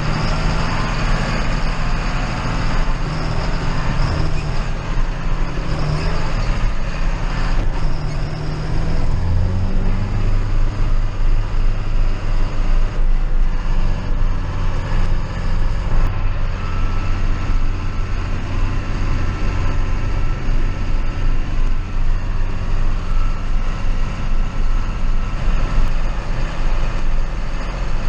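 A heavy farm vehicle's engine running steadily while driving on the road. Its note shifts about ten seconds in, then holds a steady lower hum.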